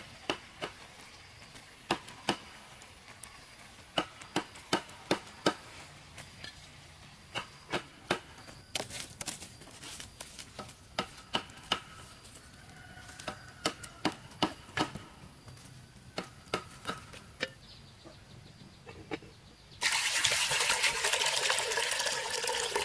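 Many short, sharp knocks at an irregular pace, then a loud steady rushing noise that starts suddenly about three seconds before the end.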